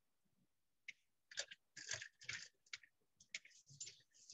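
Faint, irregular clicking of computer keyboard keys being typed on, with short gaps between the taps.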